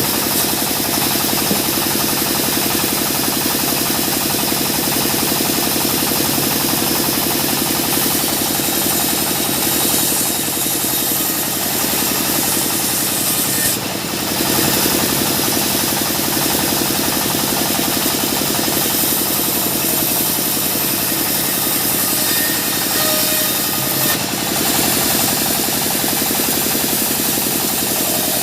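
A sawmill's engine running steadily at a constant speed, with an even firing rhythm and two brief dips in loudness.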